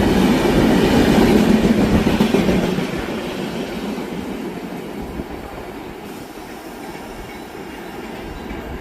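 The 12289 Duronto Express passenger train running past, its wheel-on-rail noise loudest for about the first three seconds, then fading steadily as it moves away.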